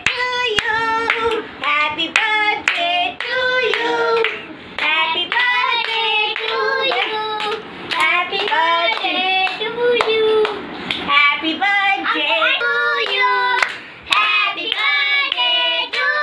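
Young children singing in high voices and clapping their hands.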